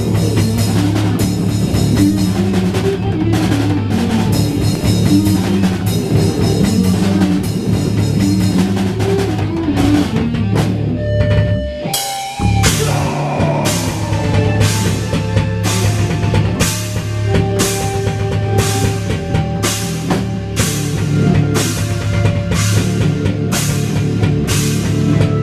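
Live metal/post-hardcore band playing loud: distorted guitars, bass and a drum kit. About eleven seconds in the band stops briefly with a note left ringing, then crashes back in with evenly spaced heavy hits.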